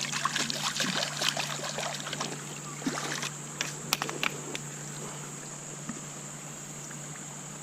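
Shallow creek water splashing and trickling around someone wading and handling debris. Irregular clicks and knocks are dense for the first four or five seconds, then settle into a steady watery hiss.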